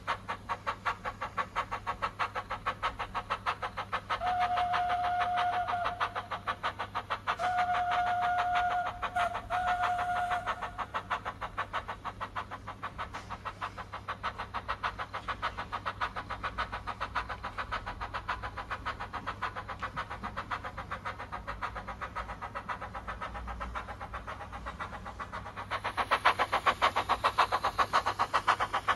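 Recorded exhaust of the Ffestiniog Railway's narrow gauge steam locomotive 'Prince', played through the DCC sound decoder and speaker of a model locomotive: steady, rapid chuffing while running. The whistle sounds three times a few seconds in, one blast and then two in quick succession. Near the end the chuffs grow louder and heavier.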